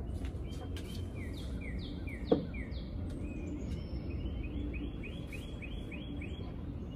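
A bird chirping over and over in quick runs of short falling chirps, with one sharp knock about two seconds in.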